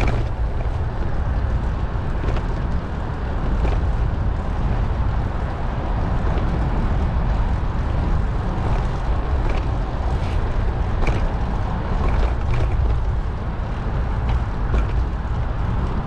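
Wind rushing over the microphone of a bicycle riding along, with the rolling noise of the ride beneath it and occasional faint clicks.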